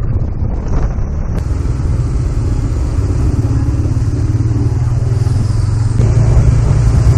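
Kawasaki Dominar 400 motorcycle's single-cylinder engine running under way, with a deep, bassy exhaust note through a budget aftermarket muffler.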